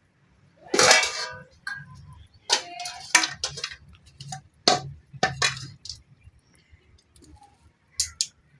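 Metal pots and utensils clattering: one loud ringing clank about a second in, then a string of sharp clinks and knocks, with a couple more near the end.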